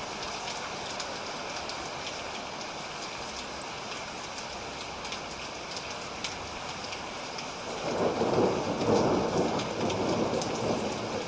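Steady rain falling, with scattered tiny drop ticks. About eight seconds in, a low thunder rumble swells up and keeps rolling.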